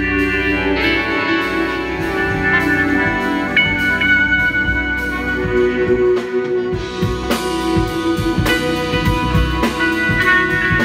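Live band playing: trumpet lead over electric guitar, bass guitar and drum kit. The drums strike more steadily in the second half.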